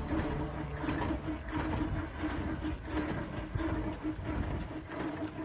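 Homebuilt small steam engine running as it pulls away, giving a steady, rhythmic chuffing of several beats a second.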